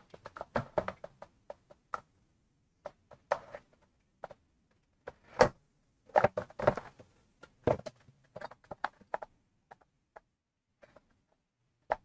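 Irregular clicks, taps and knocks of hands working the new pressure switch and its wires into the compressor's plastic shroud, with one sharper knock about five seconds in.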